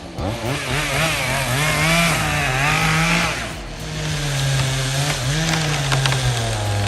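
Chainsaw engine running hard, its pitch rising and falling as it revs and bogs while cutting wood. It drops away briefly about halfway through, then comes back and holds steadier.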